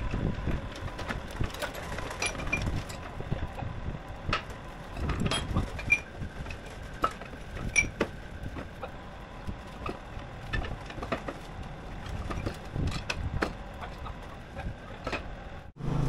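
Forklift engine running while the steel track of a John Deere 450G crawler dozer clanks irregularly as it is dragged by a chain back up onto the machine, with a backup beeper tone fading out in the first second.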